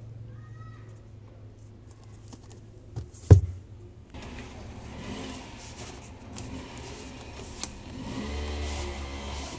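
Cardboard phone box handled on a desk, with one sharp knock about three seconds in. A vehicle engine drones under it, louder from about eight seconds in.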